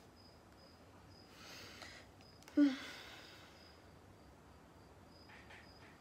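Faint cricket chirping, a high-pitched pulse repeating evenly throughout. A breath is heard about a second and a half in, and a short voiced sound from a person about two and a half seconds in.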